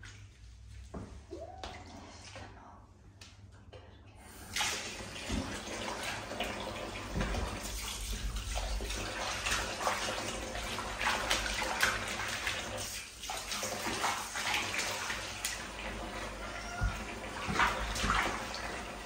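Water from a bathtub tap pouring into a foamy bath, starting suddenly about four and a half seconds in, with splashing as a wet cat is washed in the water.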